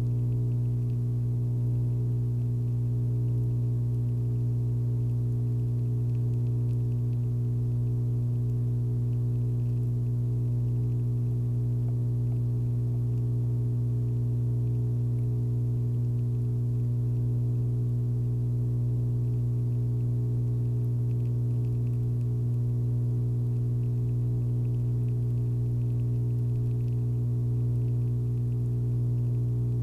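A steady, unchanging low hum with many overtones above it, like electrical mains hum.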